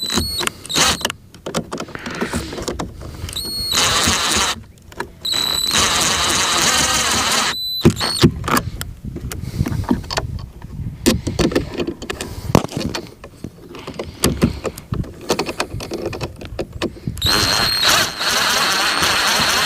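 Clicks and knocks of hands and tools working on a boat's remote control, with a high-pitched steady tone that comes on and cuts off several times.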